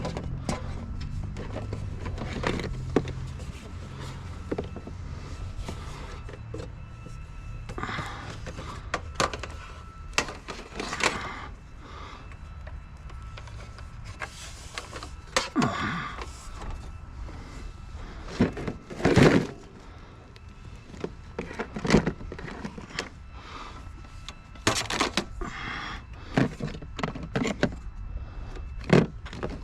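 A series of irregular knocks, clunks and clatters of objects being handled, over a low steady hum in the first few seconds that fades out.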